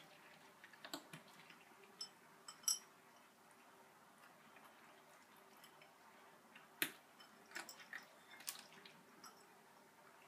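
Two cats eating dry kibble: scattered faint crunches and sharp clicks at an irregular pace, the two loudest about three and seven seconds in, over a faint steady hum.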